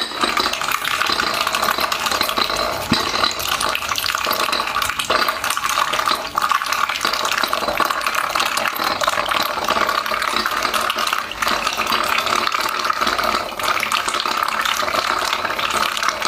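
A duck dabbling its bill in a bowl of water and grain, making a fast, continuous wet slurping and splashing.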